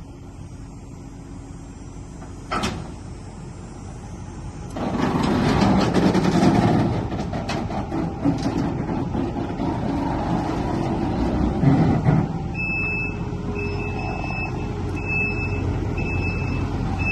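Heavy machinery working: a single knock a few seconds in, then an engine running loud from about five seconds in. From about twelve and a half seconds a vehicle's reversing alarm beeps at a steady pace.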